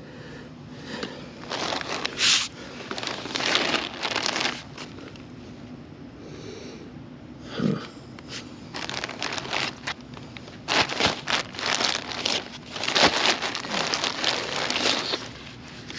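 Dirt and small rocks being scraped and packed into a post hole around a wooden mailbox post, a gritty crunching that comes in several bursts, with a single dull thump about eight seconds in.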